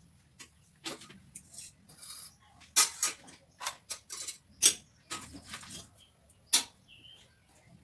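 Metal kitchen utensils and steel dishes clinking and clattering as a plate of rice and curry is dished up, in an irregular string of sharp clinks and knocks.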